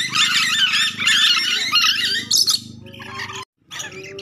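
Nuri dora (ornate lorikeets) chattering and squawking in a dense run of shrill calls, which thins out about two and a half seconds in. The sound cuts out completely for a moment near the end, then quieter calls resume over a faint steady hum.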